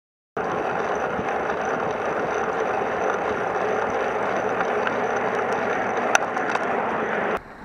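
Steady rushing road and wind noise from a bicycle being ridden along a road, heard through the bike-mounted camera's microphone, with one sharp click about six seconds in. It stops abruptly just before the end.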